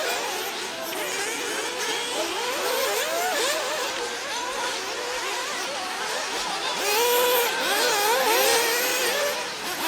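Several 1/8-scale nitro buggies racing, their small glow-fuel two-stroke engines making high whines that rise and fall and overlap as the cars rev up and back off. The sound grows louder about seven seconds in.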